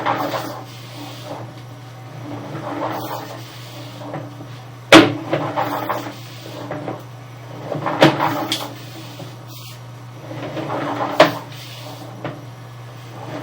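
Sewer inspection camera rig rattling and knocking as its push cable is fed through the drain pipe, in irregular bursts with sharp knocks about five, eight and eleven seconds in, over a steady low electrical hum.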